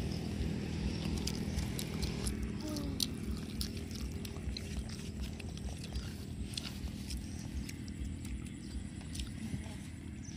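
Wind rumbling on the microphone, with scattered sharp clicks and crackles of a child chewing cooked water snake.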